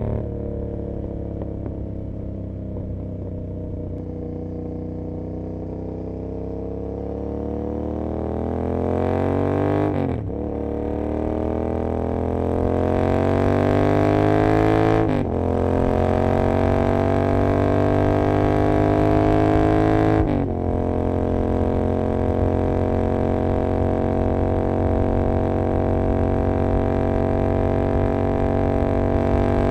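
Royal Enfield Continental GT 650's 648 cc parallel-twin engine through an Emgo Hooligan exhaust with no dB killer, heard on board under acceleration. The engine note climbs in pitch, with three quick upshifts about ten, fifteen and twenty seconds in, each a brief break and drop in pitch. After the last shift it settles to a steady cruise.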